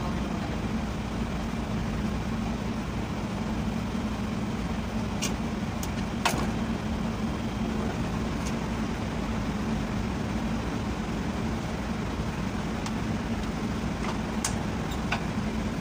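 Steady background hum and noise, with a few short, sharp metallic clicks from the drum-brake shoe and adjuster parts being handled and seated on the backing plate. The loudest click comes about six seconds in.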